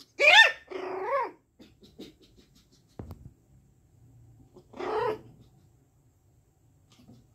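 Young Shih Tzu puppies barking in high yaps: a loud one near the start with a shorter one right after it, then another about five seconds in. A single low knock falls in between, about three seconds in.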